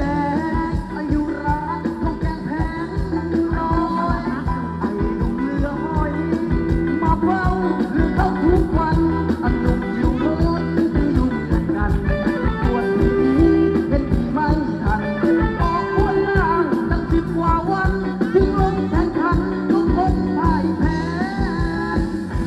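Live band music for Thai ramwong circle dancing: a fast, steady drum beat under a wavering melody line, with singing.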